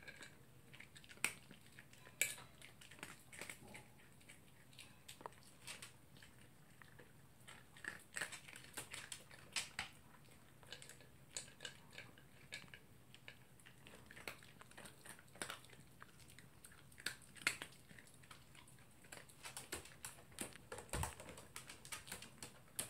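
Toy poodle eating dry kibble from a plastic slow-feeder bowl: irregular small crunches and clicks of the pellets being chewed and nosed around the bowl.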